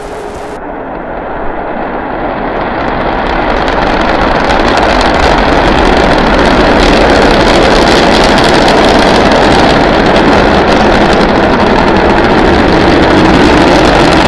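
Starship SN9 prototype's three Raptor rocket engines firing at liftoff and climb-out: a loud, dense rumble that grows louder over the first few seconds and then holds steady.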